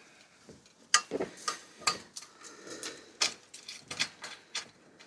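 A metal spanner working a 9 mm bolt on a bicycle's rear derailleur: a string of irregular sharp metallic clicks and clinks, two or three a second, starting about a second in.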